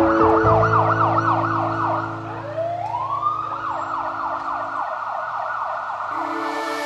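Ambulance siren in a fast yelp, about four up-and-down sweeps a second. About two and a half seconds in it slows into one rising wail, then goes back to the fast yelp.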